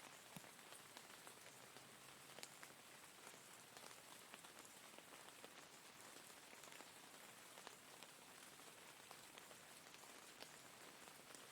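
Faint, steady rain: an even hiss with scattered sharp drop ticks striking a surface.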